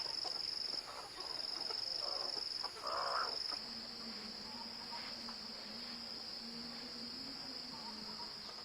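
Insects trilling steadily at a high pitch, in a few long stretches at first and then without a break.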